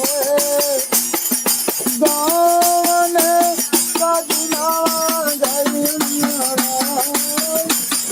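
A solo singer holding long, wavering notes in a melodic song, over a steady jingling tambourine beat.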